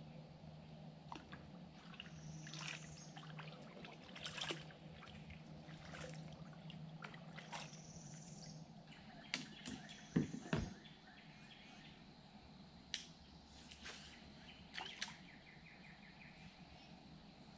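Kayak paddle strokes in calm river water: short splashes, drips and trickles off the blade, the loudest splash about ten seconds in. A few short, high bird chirps come between them.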